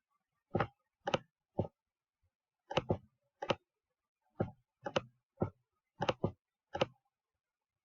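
Slow, irregular keystrokes on a computer keyboard: about a dozen separate clicks, some in quick pairs, typed one key at a time.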